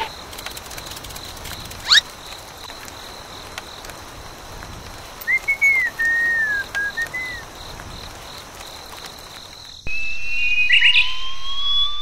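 Cartoon-style sound effects over a steady hiss: a quick upward swish about two seconds in, a short run of whistle-like chirps in the middle, then a slow rising whistle near the end.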